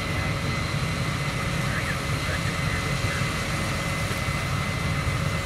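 Heavy diesel farm machinery running steadily at constant speed: a low drone with a thin, steady high whine over it.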